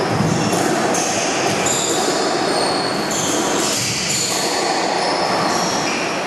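Squash players' shoes squeaking on the court floor during a rally: many short, high squeals, one after another, over a steady background din.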